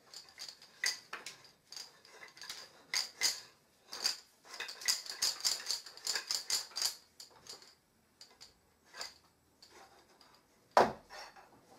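Wooden parts and beads of a baby play gym clicking and clattering together as they are handled and fitted, in irregular clusters, with one louder knock near the end.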